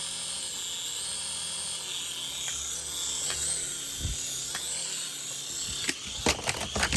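Toy UFO helicopter's small electric motor and rotor whirring steadily, with a few sharp clicks and knocks near the end.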